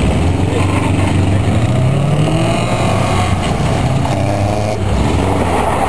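Subaru wagon's engine running hard under load as it climbs a steep dirt hill, the revs rising about a second and a half in.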